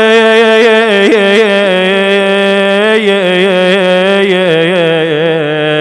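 A man chanting a Shia Husseini elegy in Arabic, drawing out one long melismatic vowel without words. The pitch turns and wavers in small ornaments with hardly a break.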